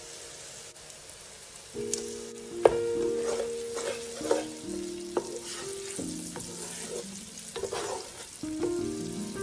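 Sliced onions sizzling as they fry in a pan, stirred with a spatula that scrapes and knocks against the pan several times. Background music with held notes comes in about two seconds in.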